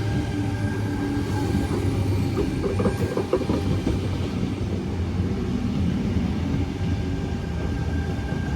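Tangara electric train running through the station, with a steady rumble of steel wheels on rail and a hum. A quick run of wheel clicks comes about two to three and a half seconds in.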